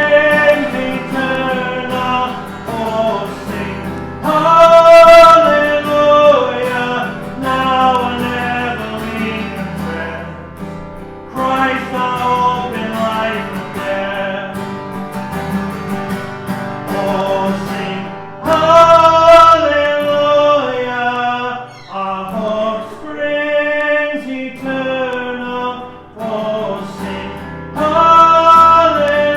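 A song sung with acoustic guitar accompaniment.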